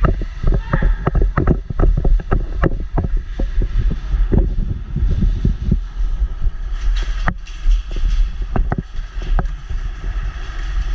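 Constant heavy low rumble under many irregular sharp clicks and knocks, thickest in the first half and again about seven seconds in.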